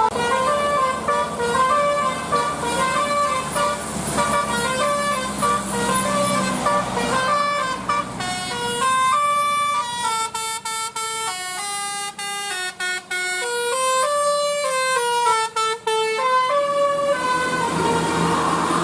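Bus 'telolet basuri' multi-trumpet musical air horn, a nine-note, eighteen-trumpet set, playing a fast tune of many short stepped notes with a few brief breaks. The tune stops shortly before the end, leaving vehicle rumble.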